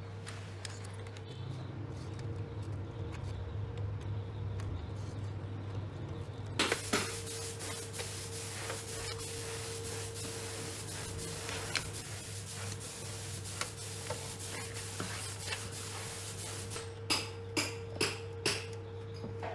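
A steady, even hiss of spraying air or liquid starts suddenly about seven seconds in, over a low steady hum. A few sharp clicks come near the end.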